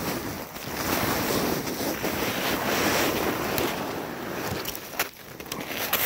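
Wind buffeting the microphone, a steady rushing noise that drops away briefly about five seconds in, with a few faint knocks.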